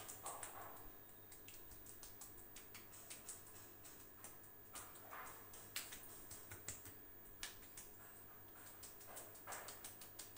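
Faint soft taps and clicks of fingertips patting the face and neck, scattered unevenly, with a few short breathy sounds.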